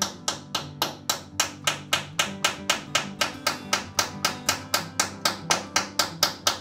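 Background music with a steady tapping beat, about four taps a second, over plucked guitar.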